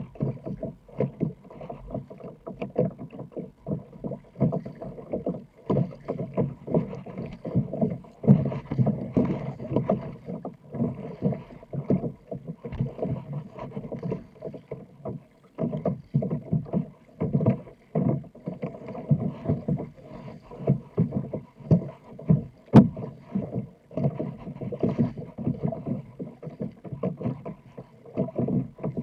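Sit-on-top kayak being paddled through choppy water: paddle blades dipping and water splashing and slapping against the hull in an uneven, continuous rhythm. A single sharp knock about two-thirds of the way through.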